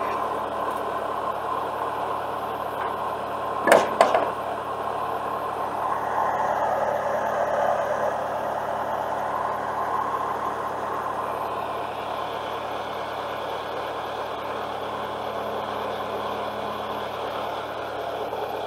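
A truck engine running steadily, with two sharp knocks close together about four seconds in.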